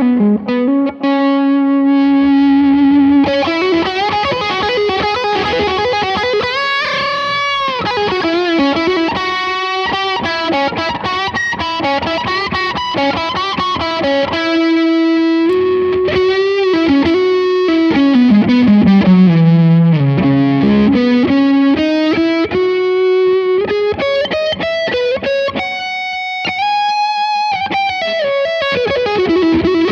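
Electric guitar played through a Blackstar JJN20 MkII valve combo amplifier, with a distorted single-note lead. It has long held, bending notes, and a line that falls in pitch and then climbs again around twenty seconds in.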